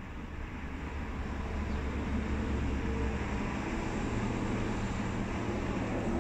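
A vehicle engine idling, heard from inside a vehicle: a steady low rumble that grows a little louder about a second in.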